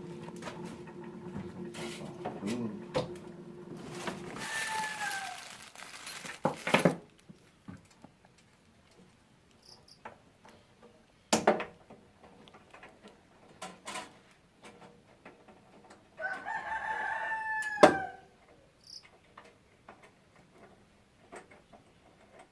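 A rooster crowing twice: a short crow about four seconds in and a longer, held crow that falls away near the end. Scattered sharp knocks and clicks come between, the loudest just as the second crow ends, and a steady hum runs under the first few seconds.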